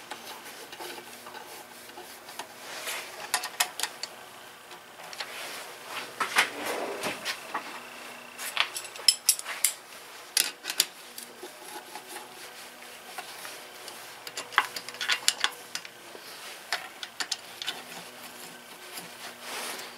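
Hand tools clicking and clinking on metal engine parts, in short irregular runs of sharp clicks.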